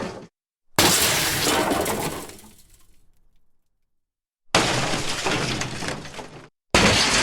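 A run of separate crash sound effects, each with a sharp breaking, smashing onset and dead silence between them. One crash about a second in fades away over a couple of seconds. Another, about four and a half seconds in, stops abruptly. A third starts near the end.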